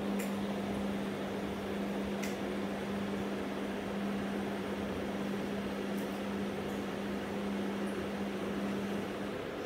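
Aquarium equipment running: a steady low hum over a steady hiss, with a few faint ticks.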